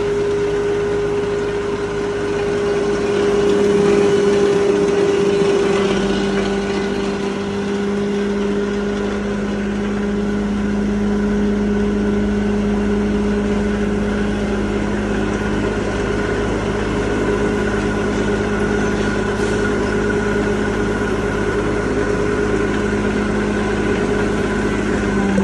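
Belt-driven husk grinding machine running steadily under its electric motor: a continuous whine over a grinding rush, with a second, lower hum joining about three seconds in.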